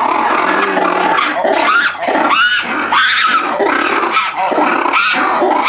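Red ruffed lemur's loud territorial call: a long series of harsh shrieking calls, about two a second.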